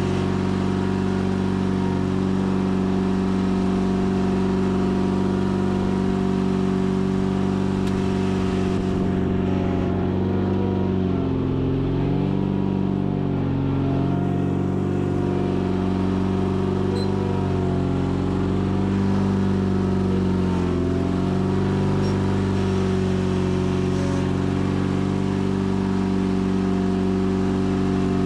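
Sears Craftsman FF24 garden tractor engine running steadily while pushing dirt with a front-mounted 54-inch plow blade. Its pitch sags a few times in the middle and again about two-thirds through as the load pulls it down.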